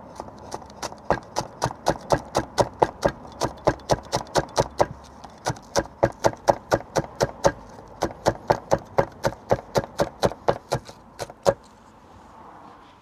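Knife chopping spring onions on a cutting board: a steady run of sharp knocks, about four a second, with a short pause midway, stopping near the end.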